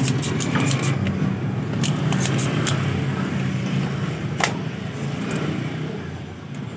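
Motorcycle engines on the street running close by, a steady low hum that fades away over the last two seconds. Scattered sharp clicks and taps come through on top.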